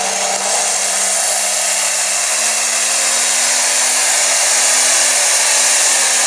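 Diesel super stock pulling tractor's engine running at full power under load, a loud dense high whine over a steady engine note that rises slowly in pitch as the tractor takes up the sled.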